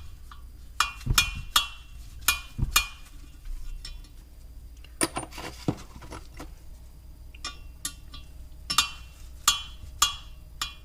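Steel valve in a Ford Focus ST225 cylinder head being worked up and down in its guide, clinking against the head in a dozen or so short ringing metallic clicks at irregular intervals. The valve moves freely without sticking.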